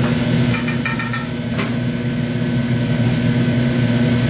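Steady low machine hum from the shop. About half a second in comes a quick run of light, slightly ringing clinks as small hard tools are picked up off the workbench, then one more click.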